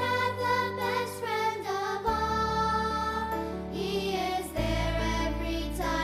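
Background music: a song with singing over sustained instruments and a steady bass line that changes about two seconds in and again past the middle.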